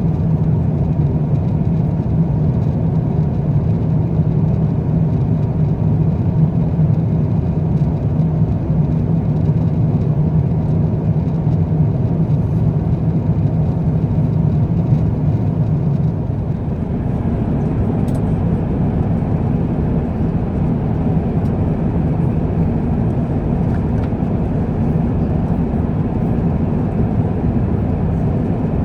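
Steady cabin drone of an Airbus A350-900 airliner in flight: a mix of engine and airflow noise heard from a window seat. Its low hum eases and the tone shifts slightly about two-thirds of the way through.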